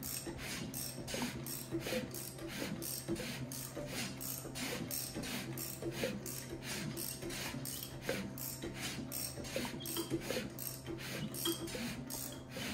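Ratchet wrench clicking in a steady rhythm, about four clicks a second, as a Big Block Chevy 454's crankshaft is turned over by hand to bring a cylinder round to its compression stroke.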